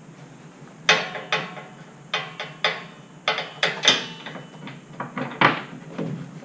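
A string of about ten sharp knocks and clunks, a few with a brief metallic ring, from sprayer parts and hardware being handled and set in place during assembly.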